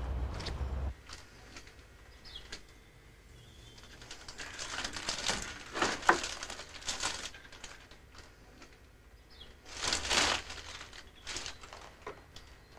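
Plastic bag rustling and crinkling in several bursts as food is handled over it, loudest around six and ten seconds in.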